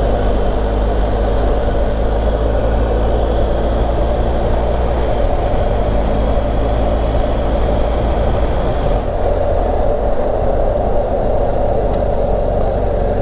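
BMW R1250GSA's boxer-twin engine running at a steady road speed, mixed with wind and road noise on the camera microphone; the sound eases a little in the last few seconds as the bike slows down.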